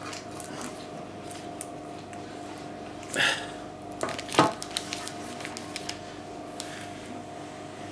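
Handling noises of work on a bandsaw wheel at a table: scattered light clicks and taps, a brief scraping rustle about three seconds in and a sharp knock about a second later, over a steady hum.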